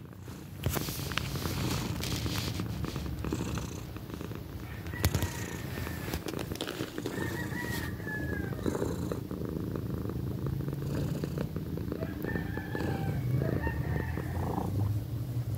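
A young tabby cat purring loudly and steadily, close to the microphone, with scattered clicks and rustles.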